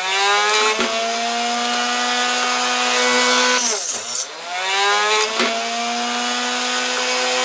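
Chop saw motor whining at steady speed while cutting brass rifle cases to .300 AAC Blackout length. Its pitch sags and recovers about 4 s in as the blade goes through a case. There are single sharp clicks about a second in and again near 5.5 s.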